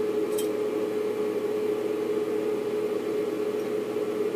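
Steady machine hum with one constant mid-low tone over an even hiss, and a brief high click about half a second in.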